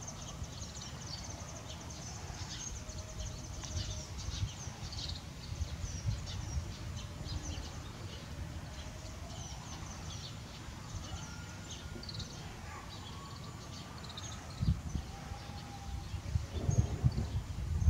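Outdoor ambience of small birds chirping, many short high calls scattered throughout, over a low rumbling noise that rises into a few louder bumps in the last few seconds.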